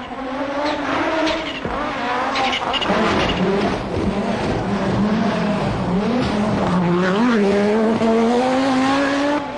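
Audi Sport Quattro S1 rally car's turbocharged 20-valve five-cylinder engine at full throttle, its note dipping and rising with gear changes, then climbing steadily through the last few seconds. A few sharp crackles come a couple of seconds in.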